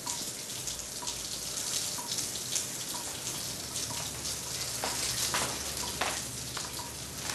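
Tap running into a washbasin: a steady stream of water, with a few brief louder splashes in the second half.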